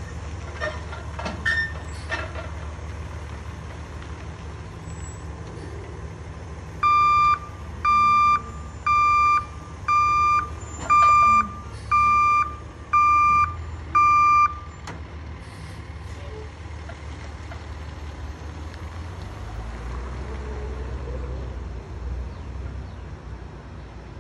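Roll-off dumpster truck's engine running, with its reversing alarm giving eight loud beeps about one a second as the truck backs up. A few sharp knocks in the first couple of seconds, and the engine a little louder near the end.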